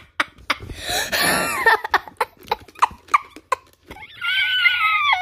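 A child making animal noises with the voice: a rough growl with falling pitch about a second in, then a long high-pitched cry near the end, amid light taps and knocks.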